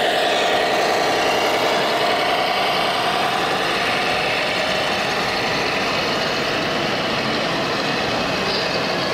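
Radio-controlled scale model trucks and construction machines running: a steady engine-like drone with faint whining tones through it.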